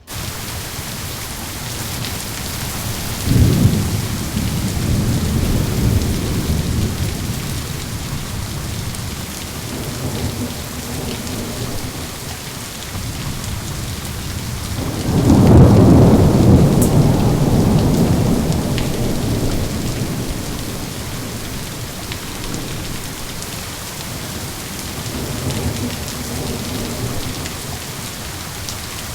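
Steady rain with thunder. A sharp clap about three seconds in rumbles away over several seconds, a louder, longer roll comes about halfway through, and a fainter rumble follows near the end.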